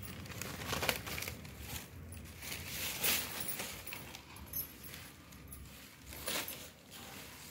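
Rustling and crinkling as a saree is handled and unfolded, with a few louder crinkles about one, three and six seconds in.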